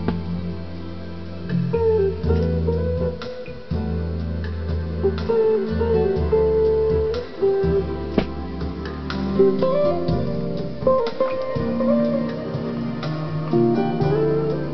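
Guitar music played back from a computer through the tape input of a Bang & Olufsen Beomaster 900K receiver.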